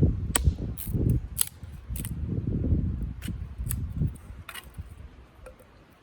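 Irregular sharp clicks and snaps over low thuds and rustling, fading away over the last couple of seconds.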